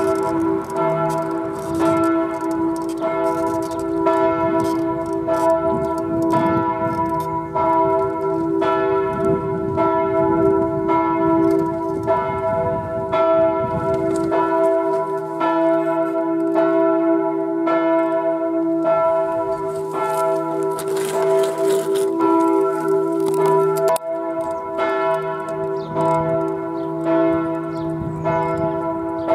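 Church bells ringing in a peal from the church tower, strokes following one another without pause over a steady ringing hum.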